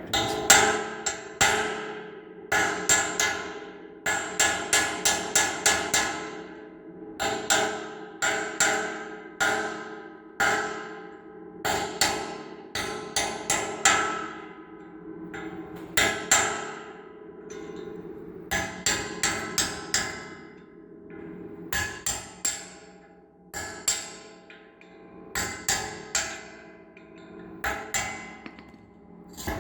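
Repeated hammer blows on steel with a metallic ring after each strike, in runs of several quick strikes with short pauses between them. A seized, rusted bearing is being beaten off the shaft of a John Deere 550 tiller.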